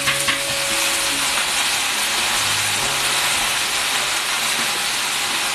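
Shredded potatoes sizzling in hot oil in a large wok, a steady hiss, with a few light knocks at the start as they are tipped in.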